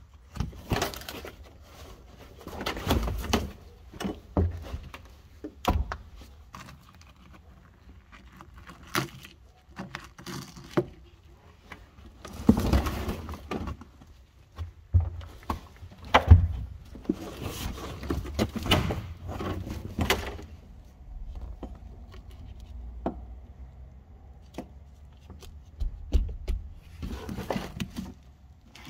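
Irregular clanks, knocks and rattles of car parts being handled and pulled loose, with short scraping and rustling stretches in between.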